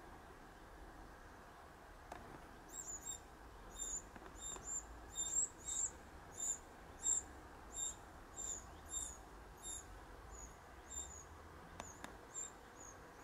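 Wren nestlings begging in the nest: a run of short, high-pitched squeaks, about two a second, starting a few seconds in.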